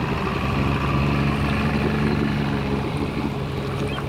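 Motorboat engine running with a steady low drone as the rescue boat pushes through the water.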